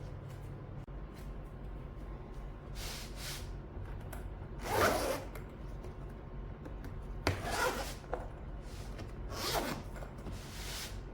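Zipper of a keyboard carrying case being run along its track in about five separate strokes, the loudest about five seconds in.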